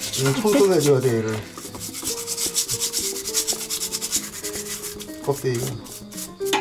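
A stiff brush scrubbing a raw blue swimming crab's shell in quick back-and-forth strokes, a rapid rhythmic scratching.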